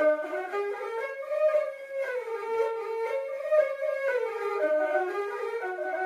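Instrumental background music: a flute-like wind instrument playing a melody that moves from note to note about every half second.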